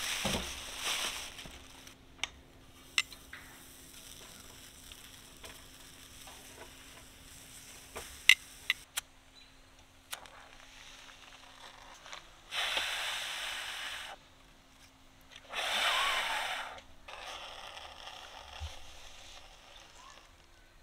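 Food sizzling in a frying pan in several short spells of a second or two, with a few sharp clicks like utensils on the pan in between.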